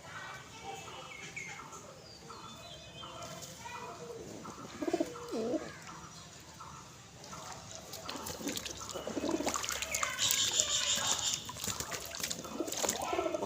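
Birds calling around a bath: a run of short repeated calls and low gliding calls, then louder, busier chirping and fluttering from about halfway through.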